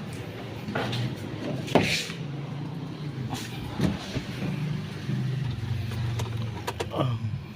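Starter motor cranking the Hyundai Accent CRDi's diesel engine, which turns over steadily but does not fire: a cranks-but-won't-start hard-start fault. A few short knocks are heard over the cranking.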